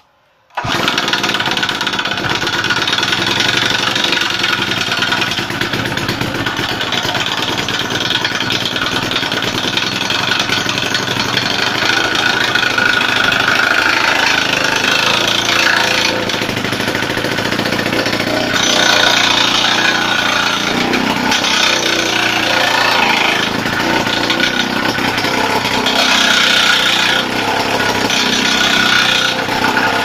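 Pionjär petrol rock drill, a two-stroke breaker, running loud and continuously as its chisel hammers into concrete. It starts about half a second in, after a brief silence.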